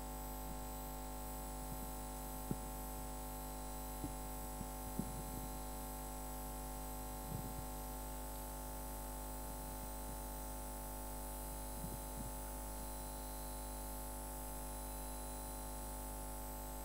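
Steady mains hum from the sound system, with a few faint knocks and taps scattered through it.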